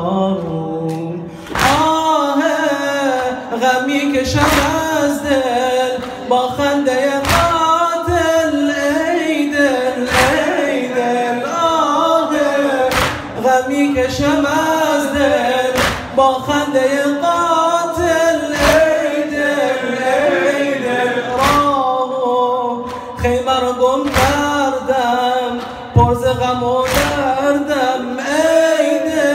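A male reciter chanting a Farsi noha, a Shia mourning lament, into a microphone in long melismatic phrases. A sharp beat falls under the chant about every one and a half seconds.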